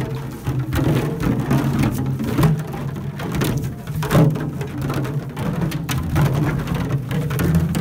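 Empty 5-gallon plastic water jugs being kicked and tumbling into one another on grass: a dense, irregular clatter of hollow plastic knocks over deep, muffled resonant jug tones.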